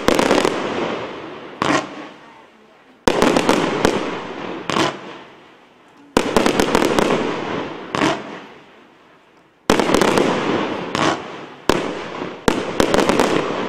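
Professional Category 4 firework cake (Attention Seeker) firing in volleys: clusters of sharp bangs from shots and bursting shells come every one to three seconds, and each volley dies away slowly before the next.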